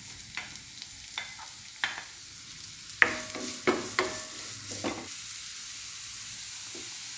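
Sliced onions sizzling in hot oil in a non-stick pan, with a wooden spatula knocking and scraping against the pan as they are stirred. The knocks come in a run that is loudest about three seconds in, over a steady hiss of frying.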